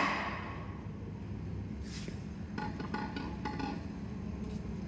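Ringing of a hammer blow on metal on a stripped Cummins engine block, dying away over the first half-second. After that, faint light clinks over a steady low hum.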